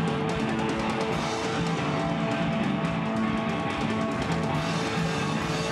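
Live rock band playing: electric guitar chords over a drum kit, with rapid cymbal strokes through most of the passage.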